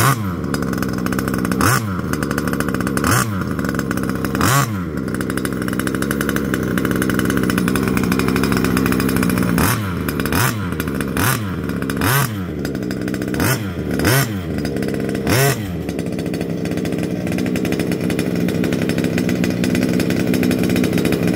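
An HSP 1/5-scale RC truck's two-stroke petrol engine, fitted with a Dominator aftermarket exhaust, is idling. About eleven times over the first fifteen seconds it is blipped sharply to high revs and falls back. After that it idles steadily.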